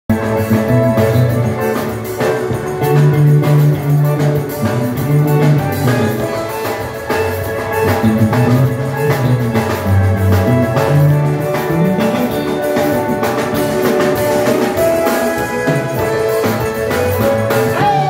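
Live dance band playing with keyboards, a moving bass line and a steady drum-kit beat.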